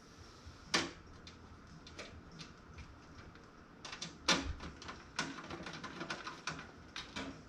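Irregular clicks and knocks of case-fan screws and plastic fans being handled and screwed in during a PC build, with two louder knocks: one about a second in and one about four seconds in.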